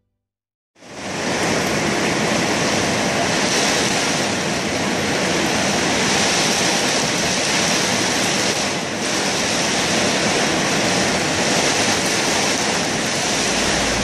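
Heavy rain pouring in a storm with strong wind, a loud steady hiss that starts suddenly about a second in.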